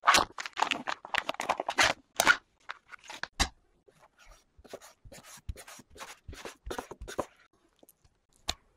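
Plastic film of a bacon package crinkling and tearing as it is peeled open, in a dense run of crackles for about two seconds, followed by sparse light taps and rustles.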